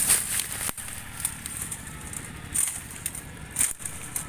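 Dry bamboo leaves and thin stalks rustling and crackling in irregular bursts as someone pushes through a bamboo clump.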